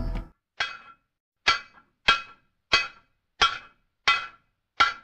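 Hammer striking an anvil, seven ringing metallic blows in an even rhythm about two-thirds of a second apart.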